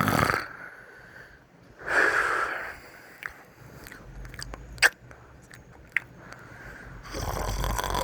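A 12-year-old boy snoring loudly with his mouth open: a rasping breath about two seconds in and another near the end, with a few sharp clicks in the quieter stretch between.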